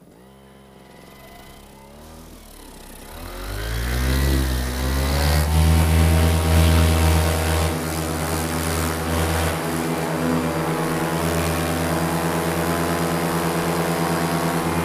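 Paramotor engine and propeller throttling up from low revs to full power over the first few seconds, then running steadily at high revs: a full-power launch run with no wind to help.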